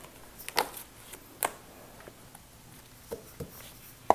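Tarot cards being handled off-camera, with a handful of sharp clicks and taps spaced roughly a second apart over a quiet background.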